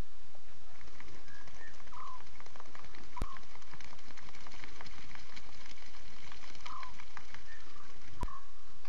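Lion cubs calling to each other with short, high mewing calls, four or five of them spaced a second or more apart. Behind them is a steady hiss with many faint clicks.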